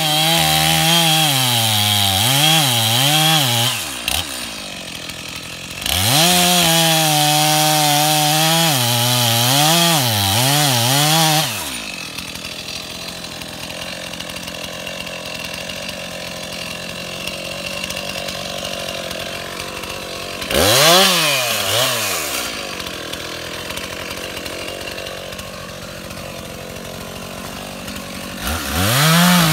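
Chainsaw cutting into a yellow pine tree. It runs at full throttle in three long bursts, with the pitch sagging and recovering as the chain loads in the wood, and drops back to a lower idle between them. The throttle comes up again near the end.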